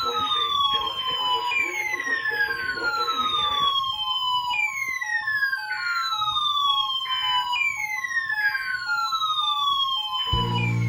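Electronic alert siren: a falling sweep repeats about every three seconds over quick beeps alternating between two notes, about four a second. A voice murmurs faintly underneath for the first few seconds.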